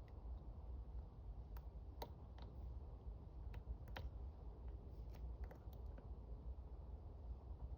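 Lock picks working in the keyway of a challenge lock held in a vise: faint small clicks and ticks at irregular intervals, over a low steady hum.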